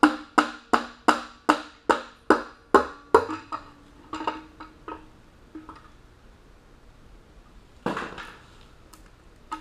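Rapid, even taps on the timing cover of a Honda R18A1 engine, about two and a half a second, each with a short metallic ring, to break the cover's silicone seal and loosen it. After about three seconds the taps slow to a few lighter knocks, with a short noisy burst near the end.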